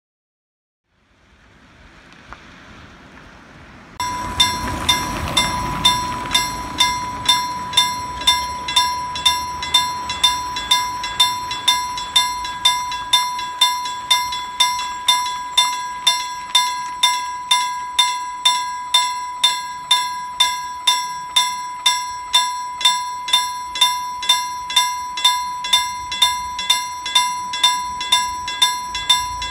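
Level crossing warning bell that starts about four seconds in and strikes evenly, about one and a half times a second, over a steady high tone, warning that a train is approaching. Faint outdoor background before it starts.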